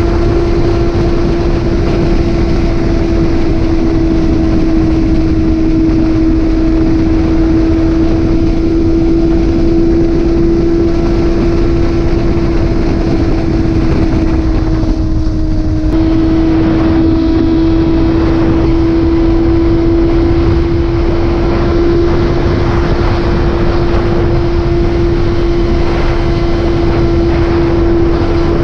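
Motorcycle engine running at a steady cruising speed, with heavy wind rush. About fifteen seconds in, the engine note sags slightly, then steps back up and holds.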